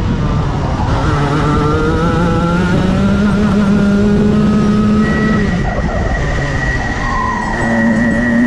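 Racing kart engine at speed, heard from onboard: its pitch climbs steadily over the first few seconds, falls away around the middle as the driver lifts off for a corner, then climbs again near the end as it accelerates out.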